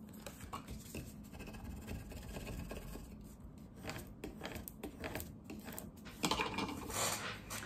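A scraper tool rubbing over transfer tape laid on cut vinyl lettering, a dry scratching made of many short strokes, louder near the end. The tape is being burnished down so that it lifts the letters off their backing.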